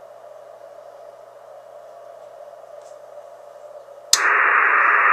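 Ham receiver band noise through a SCAF-1 switched-capacitor CW audio filter, narrowed to a soft hiss centred around 600 Hz. About four seconds in, a toggle switch clicks and the filter is bypassed, and the full-bandwidth white noise of the receiver comes in much louder.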